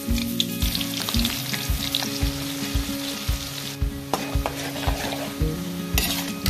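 Sliced onions sizzling as they deep-fry in hot oil in a wok, stirred through the oil now and then. Background music with a steady beat runs underneath.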